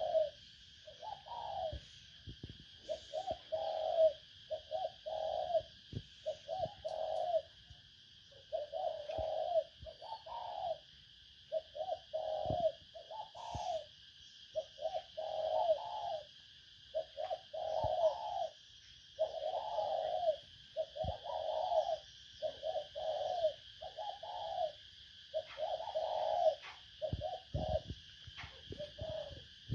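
Spotted dove cooing over and over in short phrases of two or three low coos, one phrase every second or two. This is a decoy dove's call of the kind used to lure wild doves.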